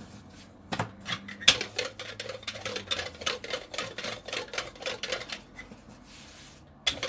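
Rolling pin worked back and forth over dough on a floured worktop, making a quick, uneven run of clicks and taps. Near the end comes a soft rustle as the dough sheet is lifted and turned by hand.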